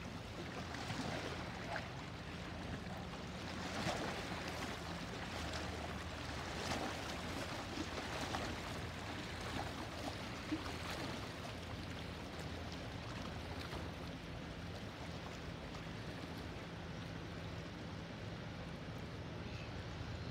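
River water lapping and splashing against the bank, with irregular splashes in the first half that settle later, over the steady low drone of passing motor cruisers' engines.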